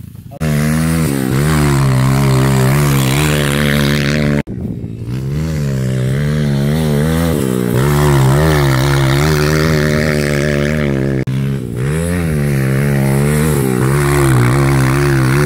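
Dirt bike engine running hard, its pitch wavering up and down with the throttle as the bike is ridden through corners. The sound cuts off abruptly about half a second in and again about four and a half seconds in, with a short dip near eleven seconds.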